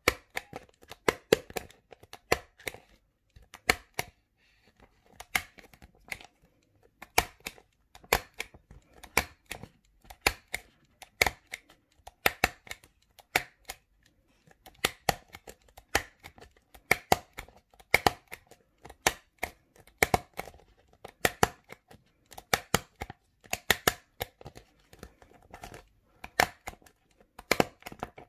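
Handheld stapler being squeezed repeatedly, driving staples through a clear plastic file sheet: sharp metallic clicks in close pairs or small clusters, about once a second.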